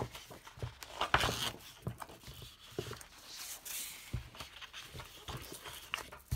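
Sheets of linen-textured card paper being turned over and handled on a tabletop: a run of swishes, flaps and light taps, busiest about a second in.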